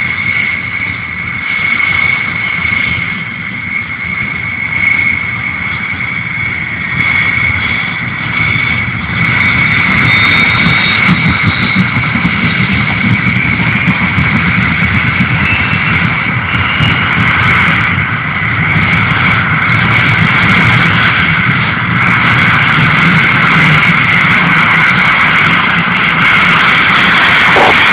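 Heavy missile-launcher truck's engine or power unit running steadily, with a steady high whine over the low engine hum. It gets louder about a third of the way in.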